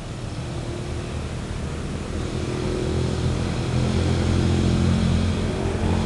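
A motor vehicle engine running in the background, a low steady drone that grows gradually louder.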